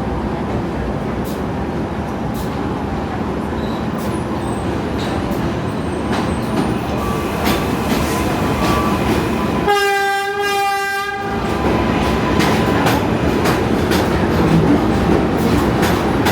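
New York City subway train running on the rails, with a steady rumble and scattered clicks of the wheels. About ten seconds in, the train's horn sounds once for about a second and a half.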